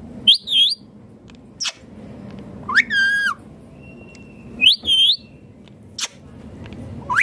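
Indian ringneck parakeet calling: a series of short whistled squawks with rising and falling pitch, with a couple of quick upward chirps between them.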